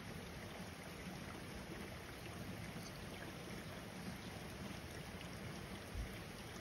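Steady rain falling on a wet street, an even hiss with a few faint drip ticks. A brief low thump about six seconds in.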